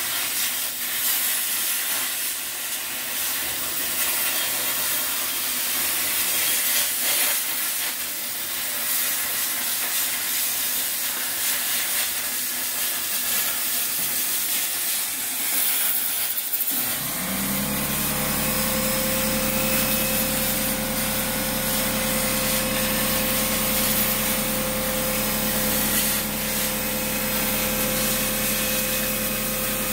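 CNC plasma cutter torch cutting sheet steel: a steady, loud hiss of the plasma arc and its air jet. A little past halfway a motor starts up, rising briefly in pitch, then hums steadily beneath the hiss.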